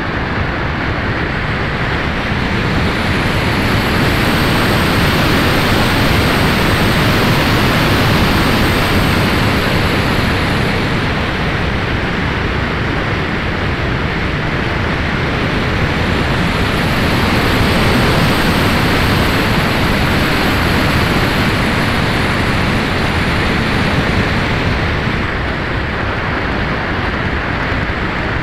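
Wind rushing over the onboard camera of a Max-Thrust Lightning 1500 glider gliding with its motor off: a steady loud hiss of airflow that swells twice, with a faint high whistle during the swells.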